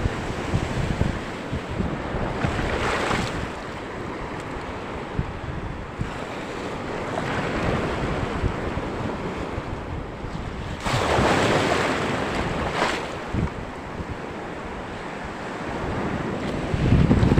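Sea waves washing ashore in strong surf, with wind buffeting the microphone. The wash surges louder twice, about a sixth of the way in and again about two-thirds through, and the low wind rumble grows heavier near the end.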